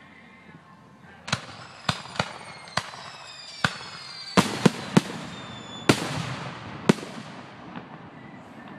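Aerial fireworks: a quick series of about ten sharp bangs as shells burst overhead, starting about a second in. Several whistles fall in pitch between the bangs, and a hissing crackle trails the loud bursts near the six-second mark.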